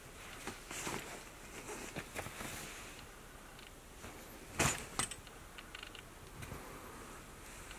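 Embroidered satin souvenir jackets (sukajan) on a clothes rail being pushed aside and brushed against one another: soft rustling of the fabric with small clicks. One sharp knock about four and a half seconds in is the loudest sound.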